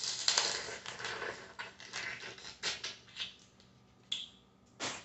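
Boiled crawfish being eaten close to the microphone: shells cracking and mouth sounds, a dense run of crackly noises that thins out after about three seconds, with two short ones near the end.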